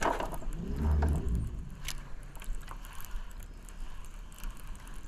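Baitcasting reel being cranked to wind in line, its gears giving a run of small light clicks, with a brief low rumble about a second in.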